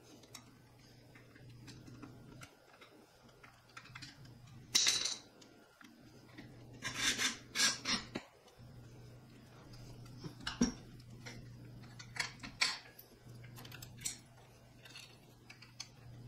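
Hand assembly of a pedestal shop fan: its metal and plastic parts and hardware being handled and fitted, giving scattered clicks and rattles with a few louder clattering, rustling bursts, over a low steady hum.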